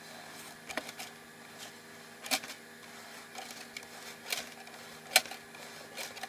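PLA filament being drawn back out of a Micro 3D (M3D) printer's internal feed tube during its unload routine: a handful of sharp, irregular clicks about a second apart, the loudest about five seconds in, over a faint steady hum.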